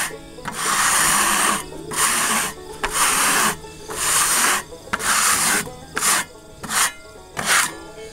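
Sawdust being brushed off the rough-sawn face of a freshly milled maple board: about nine rasping rub strokes, roughly one a second, each up to a second long, the last three short and quick.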